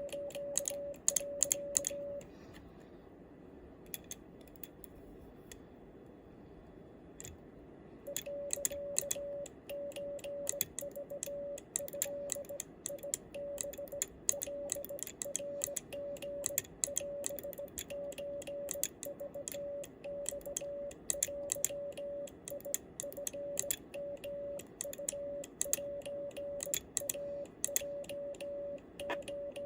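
Homemade stainless-steel bug key sending Japanese (wabun) Morse code: its lever and contacts click rapidly while a steady mid-pitched sidetone beeps the dots and dashes. The sending breaks off about two seconds in and picks up again some six seconds later.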